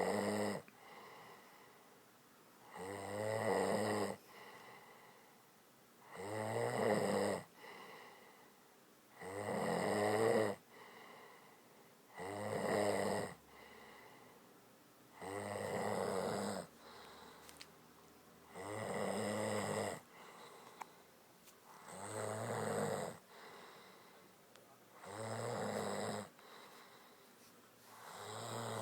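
A sleeping woman snoring loudly, one rattling snore about every three seconds in a steady rhythm.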